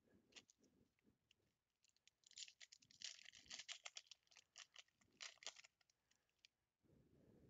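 Faint crinkling and rustling of a foil baseball-card pack wrapper being torn open and peeled off the stack of cards by hand, as quick clusters of small crackles that are thickest in the middle.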